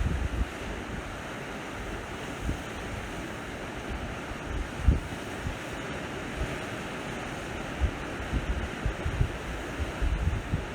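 Sea waves washing onto the shore with a steady hiss, while wind buffets the microphone in short low rumbles now and then, the strongest about halfway through.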